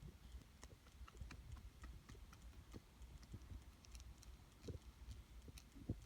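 Faint, irregular small clicks and taps of a die-cast toy car and its tiny wheel and axle parts being handled, with a slightly louder tap near the end.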